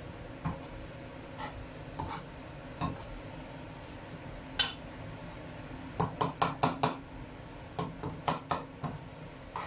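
Spatula clinking and scraping against a wok while stir-frying: scattered knocks, then a quick run of about six strikes a little past halfway and a few more soon after.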